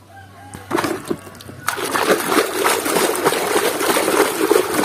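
A hand splashing and churning muddy, foamy water in a plastic basin. There is a short splash just under a second in, then vigorous, continuous sloshing from about two seconds on.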